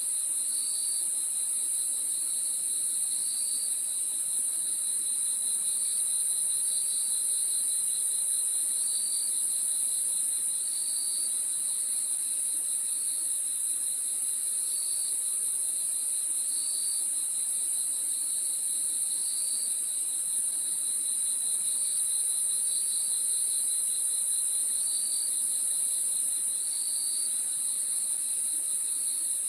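Chorus of crickets at night: a steady high-pitched trill, with a lower, pulsing chirp repeating every second or so over it.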